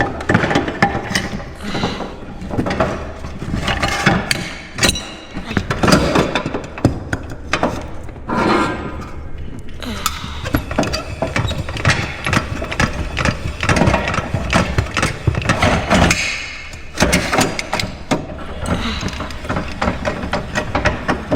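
Hand-cranked leveling feet on a scissor lift being wound down, a run of irregular metallic clicking and clanking as the lift is brought level.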